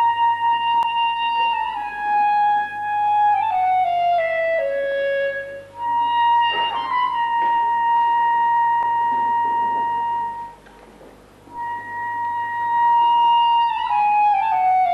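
Solo clarinet playing a slow unaccompanied melody: long held high notes that step down in falling phrases, with a short break for breath a little past the middle.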